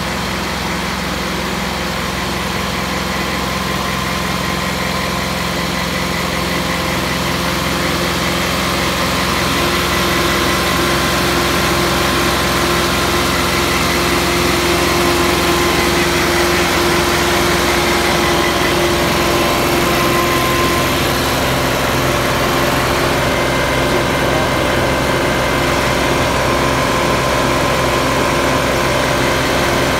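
Kioti DK4510 tractor's diesel engine running at a steady fast idle of about 2500 rpm during a parked regeneration of its exhaust particulate filter. It grows a little louder over the first ten seconds or so.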